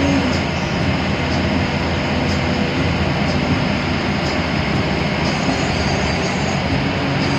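Steady engine and road noise of an AC bus on the move, heard from inside the cabin, with faint light rattles.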